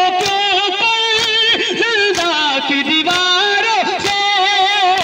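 A noha, a Muharram lament in Urdu, chanted solo with a wavering, ornamented melody, while the mourners beat their chests in unison (matam) about once a second.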